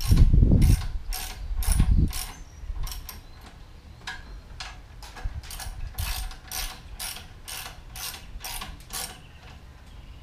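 Ratchet socket wrench clicking in steady back-strokes, about two to three a second, tightening the bolts that hold a handle on an air compressor. A couple of dull thumps sound in the first two seconds.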